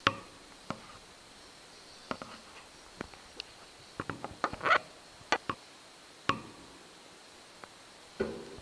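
A pet rabbit eating from a plastic cage-mounted feeder, making scattered sharp crunches and clicks, with a quick run of them about four to five seconds in.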